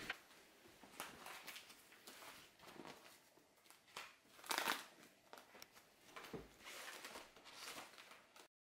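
Faint rustling and soft knocks of magazines and plastic folders being flipped through in a plastic storage box, with a louder shuffle a little past halfway; the sound cuts off suddenly shortly before the end.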